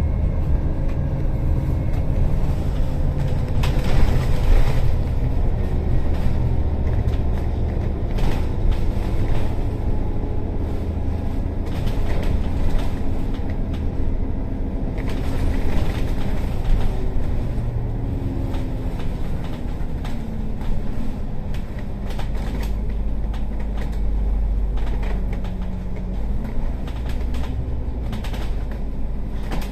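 City bus heard from inside the cabin while under way: a steady low road rumble with the engine note rising and falling as the bus speeds up and slows, and scattered short rattles and knocks.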